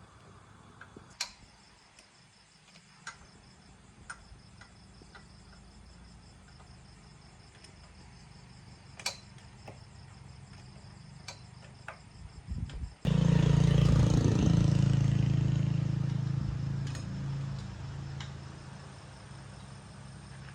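Scattered metallic clicks over a faint steady cricket chirp, then about thirteen seconds in a small engine starts abruptly and runs loudly for a few seconds before easing down.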